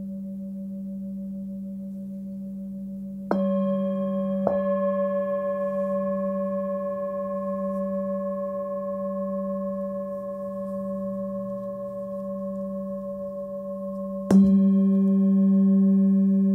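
An 18.5 cm Nepalese singing bowl tuned to G, about 194 Hz, ringing with a slow wavering. It is struck about three seconds in, again a second later, and once more, hardest, near the end; each strike brings its ring back up with bright overtones.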